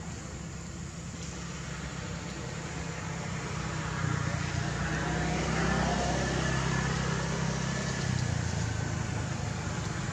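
A motor vehicle's engine running steadily, growing louder from about three seconds in and loudest around the middle.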